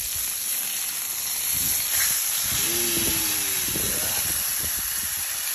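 Ribeye steaks sizzling on a hot flat-top griddle, a steady hiss that gets louder about two seconds in as one steak is flipped onto its other side.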